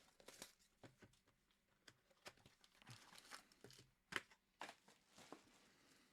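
Faint tearing and crinkling of trading card pack wrapping being opened, with scattered small clicks and taps of handling; the sharpest click comes a little past four seconds in.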